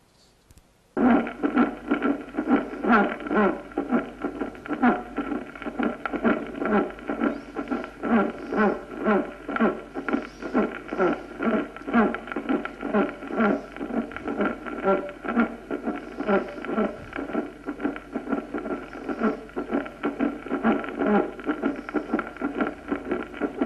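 Recorded heart sounds with a musical aortic systolic murmur: a steady tone runs through the regular beats, which start about a second in. This murmur is heard with calcified aortic valves, or with valve leaflets torn by chest trauma or damaged by thrombosis.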